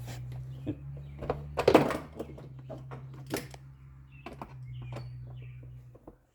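Clicks and knocks of plastic parts being handled, from work on a car's plastic airbox housing, with a louder clatter about two seconds in. A steady low hum runs underneath and stops near the end.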